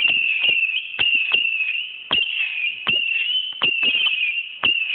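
Whistling fireworks giving a continuous high shriek that wavers slightly in pitch, with irregular sharp cracks about two a second.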